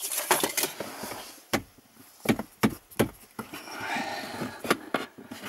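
Sharp knocks and clicks of plywood pieces being handled. About three and a half seconds in, a scraping rub of wood on wood follows as a thin plywood divider is pushed into place in a wooden frame.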